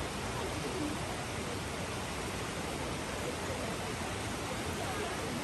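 Steady rush of flowing water from the mountain river and falls, a constant even hiss with faint distant voices under it.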